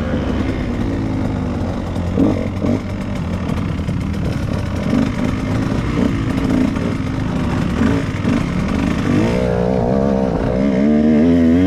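KTM 150 two-stroke dirt bike engine running as the bike is ridden, its pitch wavering up and down with the throttle, then revving higher near the end.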